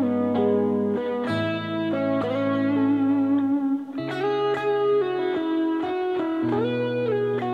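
Tokai ST solid-body electric guitar picked up by an external microphone, playing an improvised single-note lead line in which several notes slide or bend in pitch. Steady low notes sound beneath the melody.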